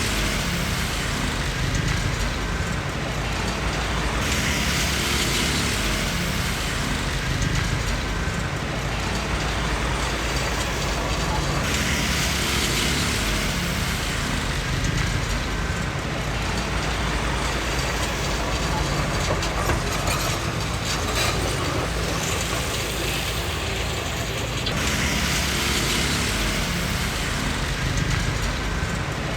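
Small Komatsu D20P crawler bulldozer working, its diesel engine running steadily under a continuous metallic clanking of the steel tracks. Brighter, harsher stretches of clatter come back a few times.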